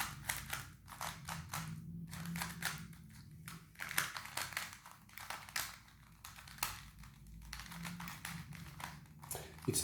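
A Cyclone Boys Square-1 puzzle being turned by hand: a steady run of quick plastic clicks and clacks as its layers slide and snap into place. The new puzzle turns tight and dry.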